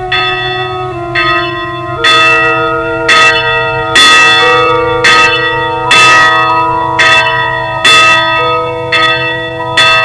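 Several church bells ringing together at different pitches, a new stroke about once a second, each one ringing on into the next. The peal grows louder about two seconds in.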